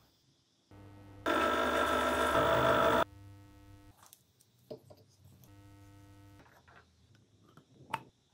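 A small electric motor running at a steady pitch in several short bursts. For about two seconds, about a second in, it is much louder with a harsh grinding on top. A few sharp ticks follow later.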